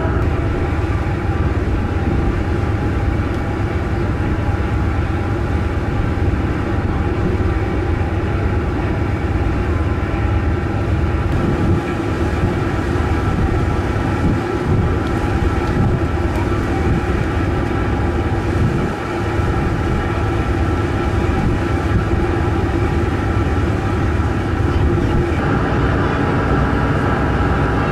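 The Osprey 2000 ferry's engines droning steadily while under way: an even low rumble with a steady hum of several tones.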